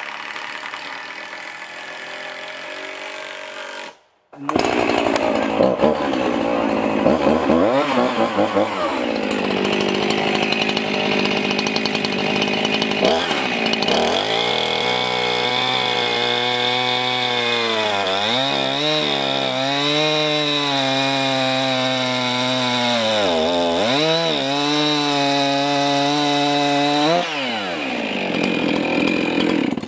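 Gas chainsaw crosscutting a thick timber beam, engine pitch dipping and recovering several times as the chain loads up in the cut. It drops away near the end.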